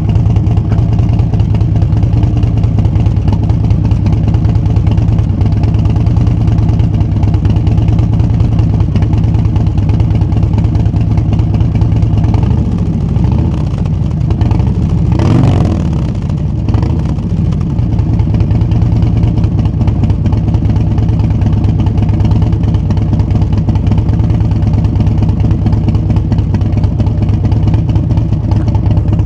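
Harley-Davidson Milwaukee-Eight V-twin idling steadily through TAB Performance 4.5-inch BAM stick slip-on mufflers: a louvered medium baffle on the right, a straight-through zombie baffle on the left. About halfway through it is revved once, rising in pitch and falling back to idle.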